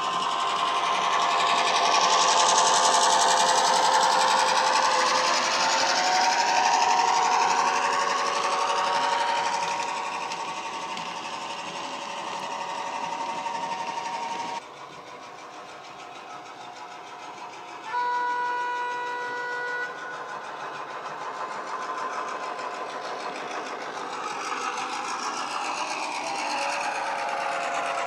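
Model Irish 141 class diesel's DCC sound decoder playing an EMD 567 diesel engine sound through a bass-enhanced speaker, mixed with the model's running noise as it passes with wagons. The sound drops suddenly about fifteen seconds in. A few seconds later a steady horn sounds for about two seconds, then the engine sound carries on and grows a little louder near the end.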